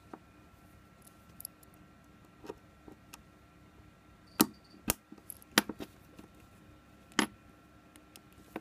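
Small sharp clicks and taps of a small screwdriver and a strap pin against a Pebble smartwatch's plastic case as the watch strap is fitted back on. They are scattered and irregular, with a few louder clicks between about four and a half and seven seconds in.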